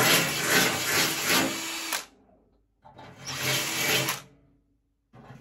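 Cordless drill boring a hole through the sheet-metal cover of an electrical panel. It runs for about two seconds, stops briefly, then runs again for about a second and a half.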